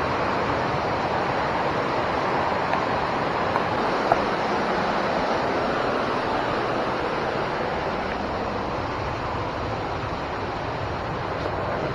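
Water pouring over a river dam: a steady rushing noise that eases slightly in the second half, with a few light clicks about three to four seconds in.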